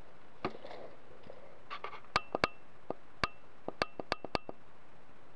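Sharp plastic clicks and knocks from a Lego Technic quad bike model being handled, about a dozen irregular ticks, some with a brief ring.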